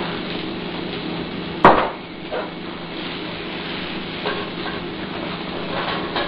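Turkey-bacon-wrapped steaks sizzling steadily in a cast iron skillet over a low steady hum. One sharp knock about a second and a half in, then a few lighter knocks of utensils being handled.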